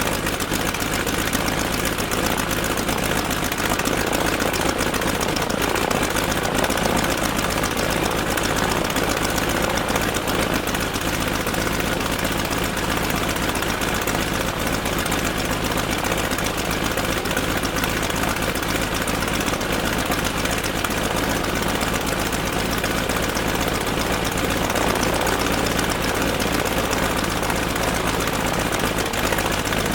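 Piston aircraft engine idling steadily, with an even, unchanging beat.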